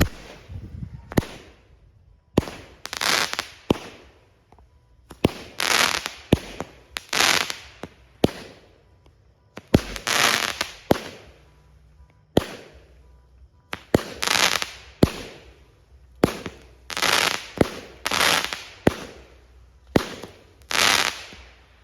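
A 16-shot 200-gram consumer firework cake firing its shots in sequence: a sharp launch thump roughly every second, each followed by a noisy burst lasting under a second, ending about a second before the close.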